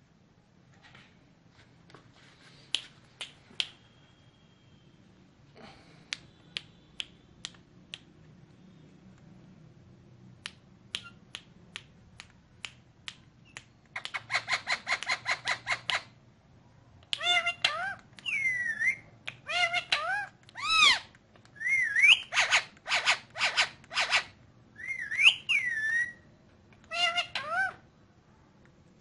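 Indian ringneck parakeet calling: scattered sharp ticks and chirps at first, then a rapid chattering run of about two seconds, followed by a series of whistled squawks that rise and fall in pitch.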